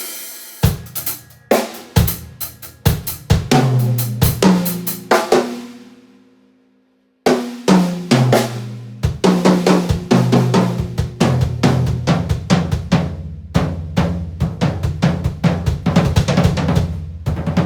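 Drum kit being played, raw and unmixed: a run of hits whose ringing dies away to about a second of silence some six seconds in, then faster, denser playing with the drums ringing underneath.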